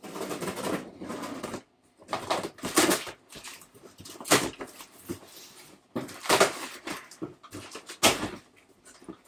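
A blade slicing packing tape along a cardboard shipping box, followed by tape tearing and cardboard flaps being pulled open and scraped, in a series of sharp rasping strokes.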